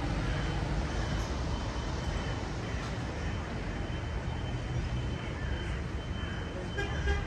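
Street traffic: a vehicle engine rumbling close by over steady road noise, with a thin high steady tone from about three seconds in and a few clicks near the end.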